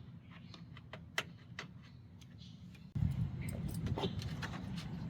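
Plastic push clips being pried out of a truck's radiator cover with a clip removal tool: scattered light clicks and taps. About three seconds in, a low steady rumble comes in under the clicks.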